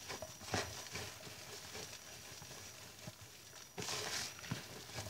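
A hand rubbing damp rice flour through a mesh sieve: soft, irregular scraping and patter of crumbs against the mesh, with a louder rasping stretch about four seconds in.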